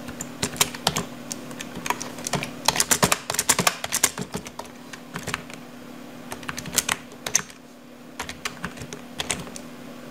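Typing on a computer keyboard: irregular key clicks, with a quick run of keystrokes a few seconds in and a short pause near the end, over a faint steady hum.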